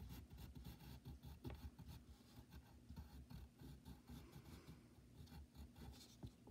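Faint pencil scratching on paper: short, irregular strokes as lines are drawn.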